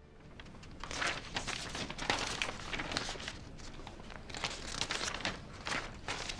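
Irregular rustling and crinkling with many light clicks and knocks, like people shuffling and handling things in a small room.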